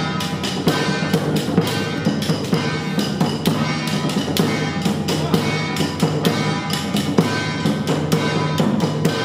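Traditional temple ceremony music: drums and metal percussion struck in a steady beat, about three strikes a second, under sustained held tones.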